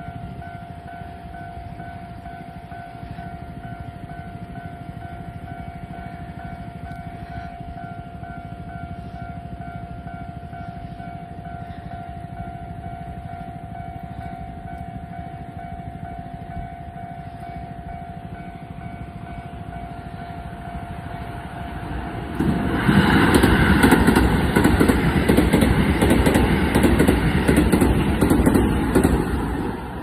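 Japanese level-crossing alarm ringing steadily as a pulsing bell tone. About 22 seconds in, a Keisei 3000-series electric commuter train runs through the crossing: a loud rush with regular clicks of its wheels over the rail joints, dying away just before the end.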